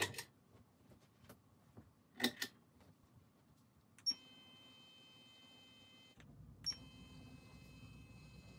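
A couple of faint clicks, then the faint steady whine of a small electric motor driving a display turntable, which cuts off after about two seconds and starts again with a click shortly after.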